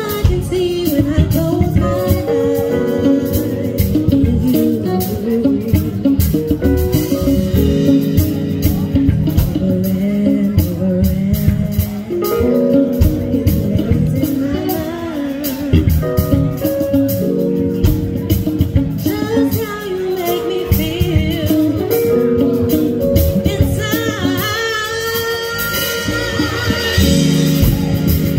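Live band playing: a woman sings lead over electric bass, keyboards, drums and guitar, with a steady drum beat throughout.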